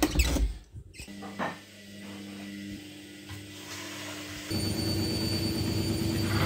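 A brief clatter and rustle, then a steady hum of a few held tones that starts about a second in and grows louder and fuller about four and a half seconds in.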